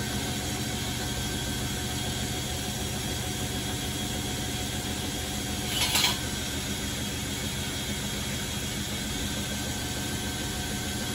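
Bosch WFF1401 front-loading washing machine running mid-cycle with a steady low hum. About six seconds in there is a brief clatter.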